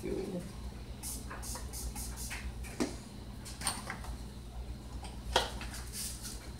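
Hard plastic and metal parts of an airsoft rifle being handled: scattered light clicks and knocks, with one sharper click a little over five seconds in as the grey combustion-chamber tube is fitted onto the rifle body. A steady low hum runs underneath.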